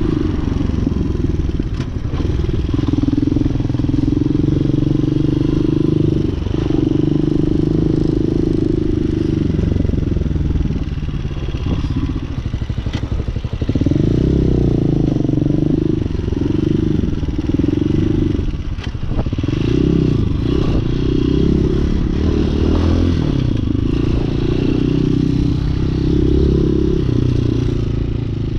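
Hawk 250 dual-sport motorcycle's single-cylinder four-stroke engine running under way. Its pitch rises and falls with throttle and gear changes, with a quick rise about halfway through.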